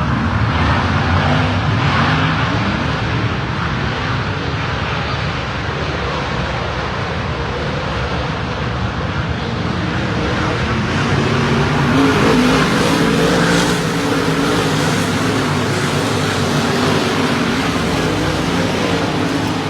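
Dirt modified race car engines running, the sound swelling about twelve seconds in.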